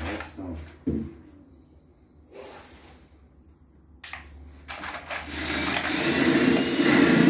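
A couple of knocks in the first second. Then, from about five seconds in, a power drill running and getting louder as it speeds up, most likely driving one of the small screws.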